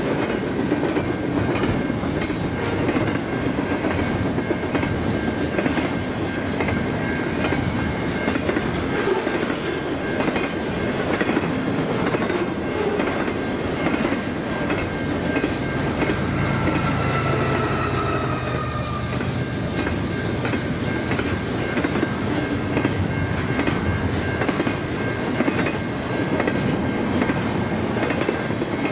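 Double-stack intermodal well cars passing close by at about 55–60 mph: a steady rumble and clatter of wheels on rail, with a few sharp clicks and a thin high whine running underneath. About two-thirds of the way through, a brief tone falls in pitch.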